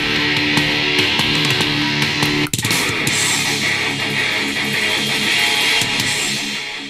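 Guitar music played from an MP3 file through the small speaker of a Tecsun X3 portable radio. About two and a half seconds in it cuts off briefly and a different song starts as the player jumps to the next track.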